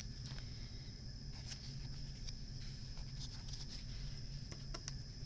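Faint scattered taps and rustles of a cardboard card of lace trim being handled and unwound, over a steady low hum.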